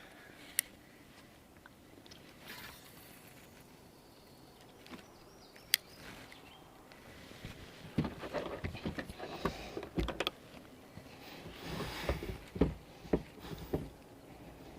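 Gear being handled aboard a kayak: a couple of sharp clicks, then a run of irregular knocks and clatter against the hull over the last several seconds.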